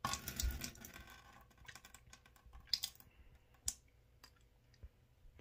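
A dense run of clicks and rustling in the first second, then a few scattered sharp clicks, two of them louder, about halfway through and a second later.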